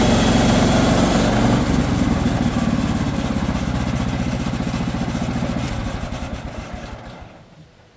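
Portable sawmill's engine running, then slowing down and dying away to a stop about seven and a half seconds in.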